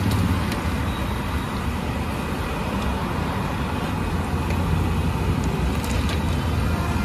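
Hot oil sizzling as batter-coated boiled eggs deep-fry in a large iron kadai, with a few metal clinks of the slotted skimmer against the pan, over a steady low rumble.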